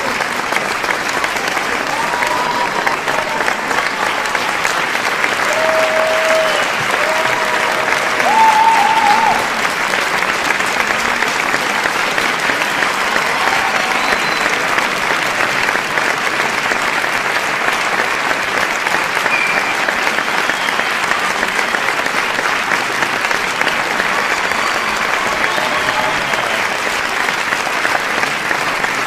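A large audience applauding steadily, a dense continuous patter of many hands clapping. A few voices shout out above it in the first ten seconds, the loudest about nine seconds in.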